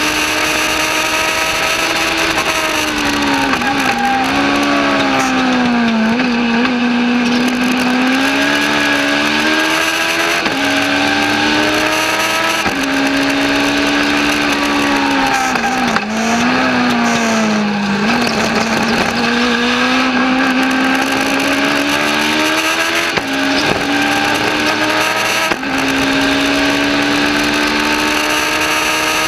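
Legends race car's Yamaha four-cylinder motorcycle engine heard from inside the cockpit at racing speed: the engine note climbs under full throttle, drops in steps at quick upshifts, and twice sags and wavers as the driver lifts off and brakes for corners before pulling hard again. Wind and road noise run underneath.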